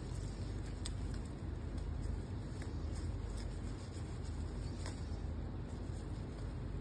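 Steady low background rumble of outdoor ambience, with a few faint ticks scattered through it.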